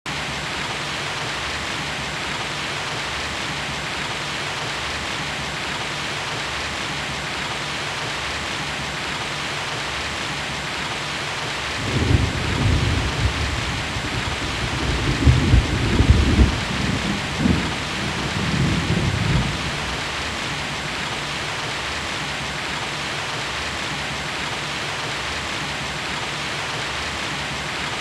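Steady heavy rain with one long roll of thunder about twelve seconds in, rumbling for some eight seconds and loudest about sixteen seconds in before fading back into the rain.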